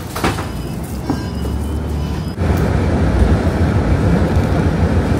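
City bus running, heard from inside the cabin: a steady low engine and road rumble that turns suddenly louder about two and a half seconds in.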